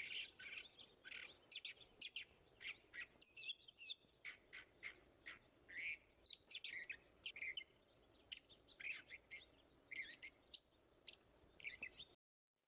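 Male cockatiel chirping and whistling in a quick string of short high calls, some sliding up or down in pitch: courtship song to a female. It cuts off suddenly shortly before the end.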